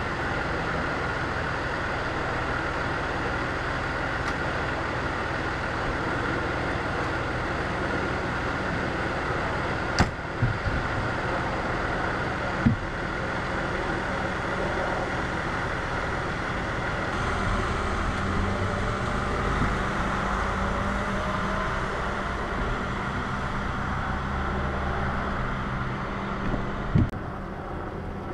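Fire engine's diesel engine idling, a steady low rumble, with a few sharp knocks, one about ten seconds in, one a little later and one near the end.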